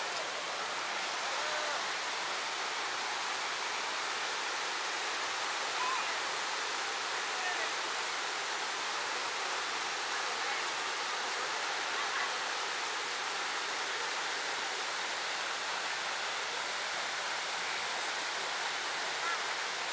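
Steady rushing of river rapids, an even hiss of fast-flowing water with no change in loudness, with faint distant shouts now and then.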